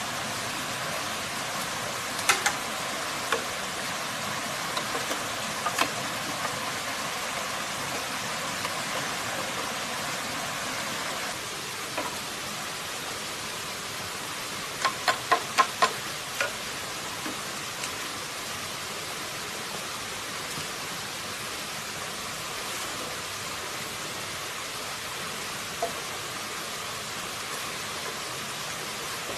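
A quick run of about five sharp machete strikes on a green bamboo pole, roughly three a second, about fifteen seconds in. A few scattered knocks from bamboo poles being handled come before it, over a steady rushing hiss.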